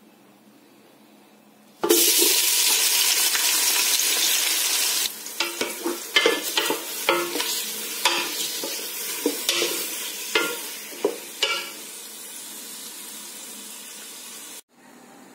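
Sliced red onions frying in hot oil in a metal pot: a loud sizzle starts suddenly about two seconds in, then eases to a steadier frying hiss. Through the middle a wooden spatula stirs them with repeated scrapes and knocks against the pot, and the sizzle cuts off near the end.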